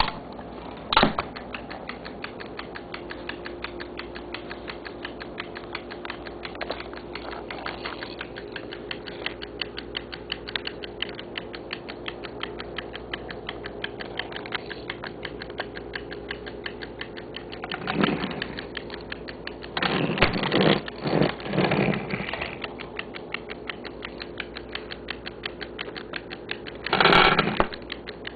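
Vintage Halda mechanical taximeter's clockwork mechanism running with a fast, even ticking, broken a few times by louder rattling clunks.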